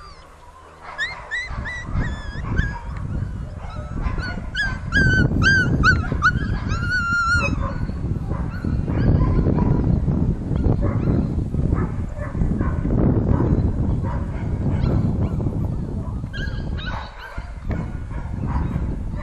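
Border collie puppies yipping and whining: high-pitched calls over the first several seconds, ending in a quick run of short yips, and more yips near the end. A low rumbling noise fills the middle stretch.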